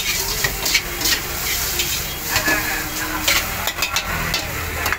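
Chow mein noodles sizzling in a wok over a high gas flame as the cook tosses and stirs them, with frequent sharp clanks and scrapes of metal against the wok.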